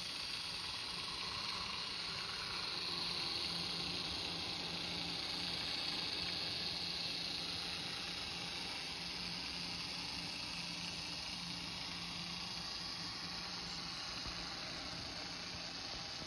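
Märklin Z-scale model train running on its track: a steady faint hiss of the tiny motor and wheels on the rails with a low hum underneath, swelling slightly a few seconds in as it passes close and easing off later.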